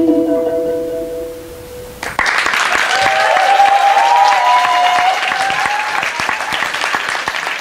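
The last held chord of an a cappella song fades out, and about two seconds in the audience breaks into sudden applause. A long rising whoop carries over the clapping for a few seconds.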